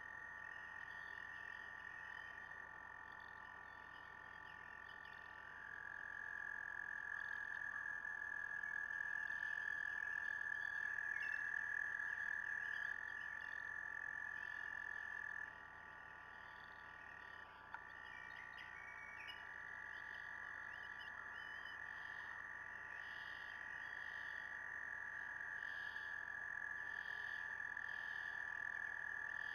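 A chorus of trilling frogs: several long, steady trills overlap at slightly different pitches, swelling about six seconds in and easing back about fifteen seconds in. There is one faint click a little past halfway.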